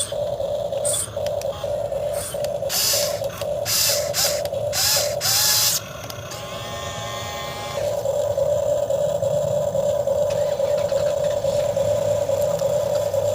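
RC excavator's motors whining steadily as it works. Several short scraping, rattling bursts come around the middle, and the whine drops and changes pitch briefly before returning to full strength.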